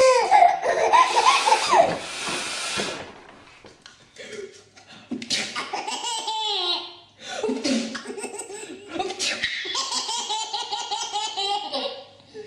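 People laughing in several separate bursts, some of it high-pitched, with a loud rushing noise in the first few seconds.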